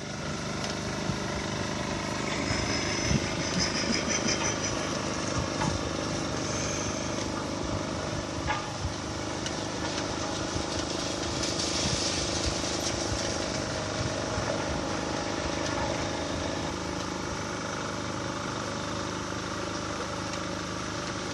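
Vehicle engine running steadily with an even hum.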